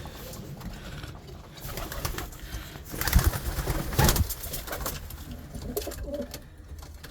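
Pigeons cooing softly in a loft, with two short thumps about three and four seconds in.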